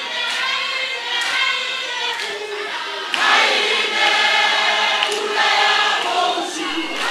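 A large crowd singing together in chorus, many voices at once, growing louder about three seconds in.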